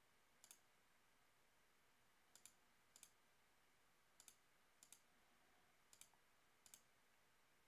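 Faint computer mouse clicks, about seven, each a quick double tick of press and release, spaced irregularly a second or so apart, over a low steady hiss.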